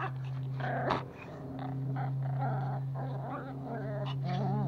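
Pomeranian puppies growling while they tug at a rope toy.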